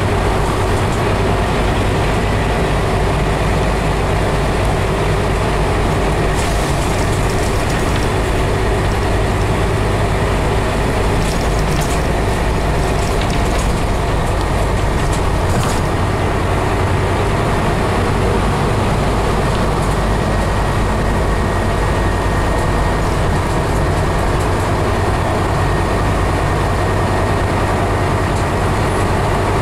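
Interior noise of a moving Scania CN270UB city bus: a steady low diesel engine hum and road noise heard from inside the passenger cabin. Light rattling clicks of fittings come and go, mostly in the middle part.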